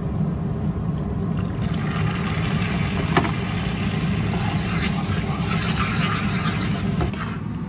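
Muscovado sugar syrup bubbling and fizzing as it caramelizes in a nonstick pan, stirred with a metal spoon that clicks against the pan about three seconds in and again near the end. A steady low hum runs underneath.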